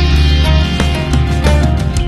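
Rock band music: a drum kit and an electric guitar playing together over a deep, sustained bass line, with steady drum hits throughout.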